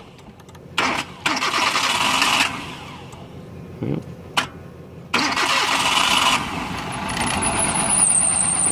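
2008 Kia Rio 1.6-litre four-cylinder engine being started: a short burst of cranking about a second in, then about five seconds in it starts and keeps running. A steady high-pitched whine joins in about two seconds after it catches.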